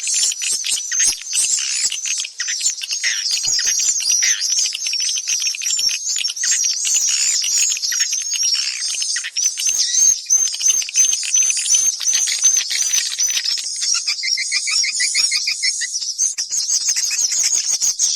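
Swiftlet call recording of the kind played to lure swiftlets: many birds twittering and chirping continuously in dense, rapid high notes. About three-quarters of the way through, a lower, fast trill joins for about two seconds.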